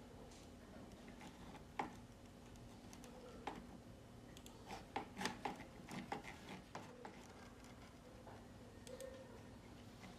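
Faint, scattered computer mouse button clicks, a quick run of them about halfway through, over a faint steady hum.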